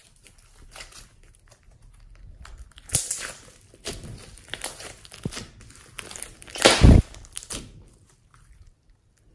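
Hands squeezing and kneading glossy slime with foam beads mixed in, giving wet squishing and crackling sounds, with one much louder squelch about seven seconds in.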